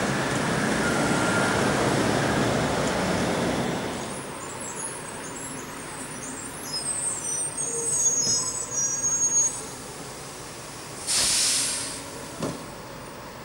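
A tram running along its track fills the first few seconds with loud, even running noise, then the street goes quieter under high twittering birdsong. About eleven seconds in, a bus's air brakes let out one hiss of about a second as it stops.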